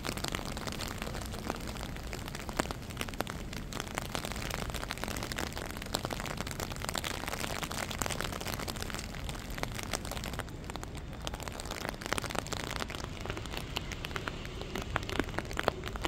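Steady rain falling on a wet city street, an even hiss dotted with many small ticks of drops.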